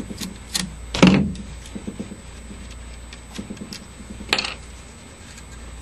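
Small metallic clicks and clinks of an 11/32 socket tool spinning the stator lead nuts off the rear case of a GM CS144 alternator, with a louder knock about a second in and a sharper clink a little after four seconds.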